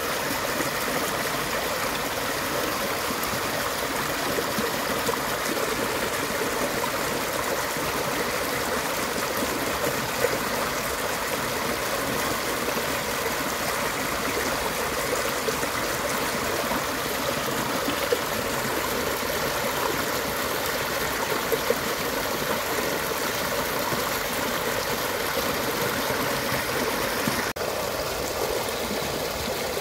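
A small stream rushing over rapids, a steady wash of running water.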